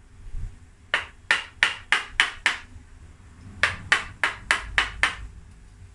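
Carving gouge struck into the wood of a bonsai trunk in two runs of six sharp taps, about three a second, with a short pause between the runs. Each tap cuts away cracked, broken wood to hollow out the trunk.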